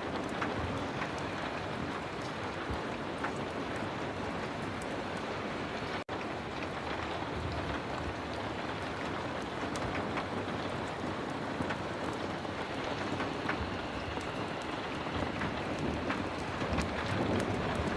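Heavy rain falling in a steady, dense hiss, with scattered small ticks of drops. It cuts out for an instant about six seconds in.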